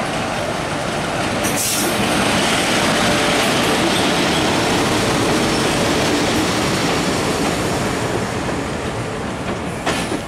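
A diesel-hauled passenger train rolls past at close range. The locomotive comes by first, then a steady rumble and rattle of coach wheels on the rails, with a few sharp clicks near the end.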